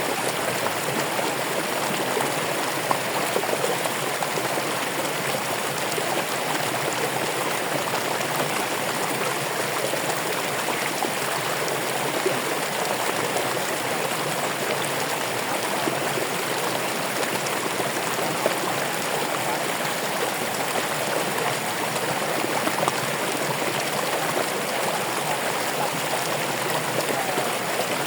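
Running water with a steady, even rush and no break.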